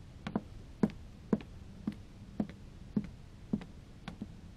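Hard-heeled shoes walking on a wooden floor: clicking footsteps, about two a second, in a small room.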